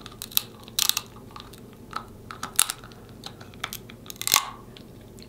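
Close-miked eating of snow crab legs: irregular sharp cracks and crunches of shell being bitten, with wet mouth smacks, the loudest a little after four seconds in.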